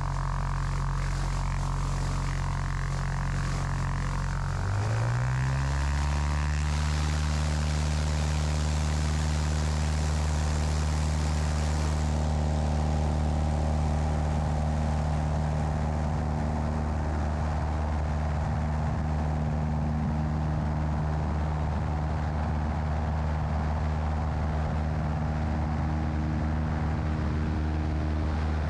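Single-engine light aircraft's piston engine and propeller running at low power, then throttled up about five seconds in, its pitch rising quickly to full takeoff power and holding steady as the aircraft rolls down the runway.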